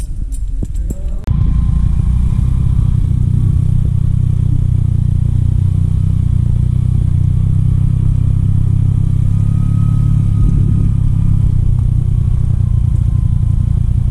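Tambourine jingles briefly, then about a second in a Honda Pridor motorcycle's engine takes over, running steadily at cruising speed along a gravel track.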